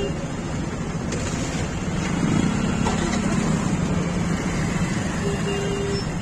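Idling motorcycle engines in stopped traffic, including the Bajaj Pulsar NS the rider sits on, which is running at idle. A short steady beep sounds near the end.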